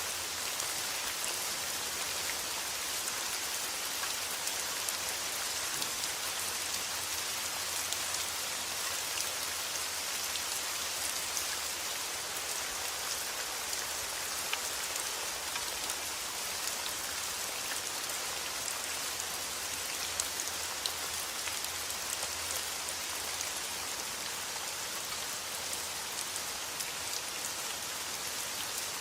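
Steady rain falling, a dense even hiss with many small individual drops tapping on a surface.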